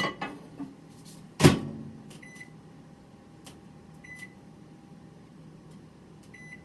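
A microwave oven being started: two loud clunks as the egg cooker goes in and the door shuts, then three short, high keypad beeps over the steady low hum of the oven running.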